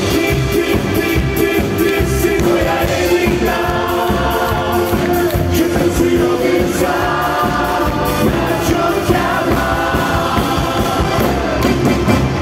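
Live folk band playing a song: men singing over accordion, violin, double bass, guitar and drums, with a steady beat.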